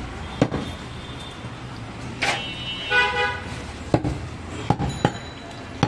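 Cleaver chopping goat meat on a wooden log block: a sharp chop about half a second in and three more in quick succession near the end. A vehicle horn toots briefly about three seconds in.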